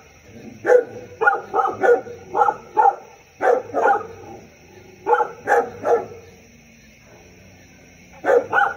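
A dog barking repeatedly in short runs of two or three barks, with a pause of about two seconds before a last pair near the end.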